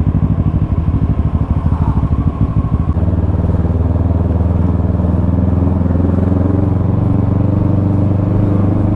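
Kawasaki ER-6n's parallel-twin engine running at low speed under way, heard from the bike itself. The note is choppy and pulsing for about three seconds, then settles into a steadier, slightly higher drone.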